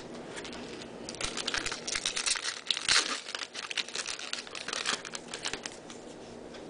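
Foil wrapper of a 2011 Topps Series 2 baseball card pack being torn open and crinkled by hand: a dense crackling that starts about a second in and dies away near the end.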